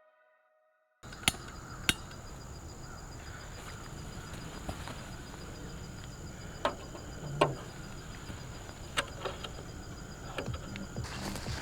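Outdoor background with a thin, steady, high insect drone and a scattering of sharp cracks or knocks, a few seconds apart.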